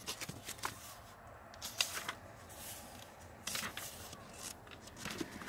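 Pages of a paper book being turned and handled: faint paper rustles and flicks in a few short clusters, near the start, about two seconds in, and again near the four-second mark.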